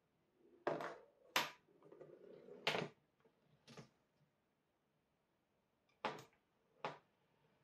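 Cardboard marble-run chain-reaction machine running: marbles rolling along cardboard tracks, with about six sharp clicks and knocks as parts strike and trip one another, and a rolling rumble in the first few seconds.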